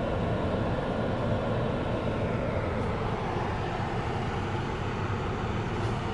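Freight train of tank cars rolling through a level crossing, a steady rumble of wheels on rails heard from a car waiting at the gates.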